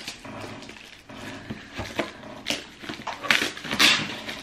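Clear plastic wrap on a cardboard shoebox being cut and torn open by hand, an irregular crinkling and rustling that grows busier and loudest near the end.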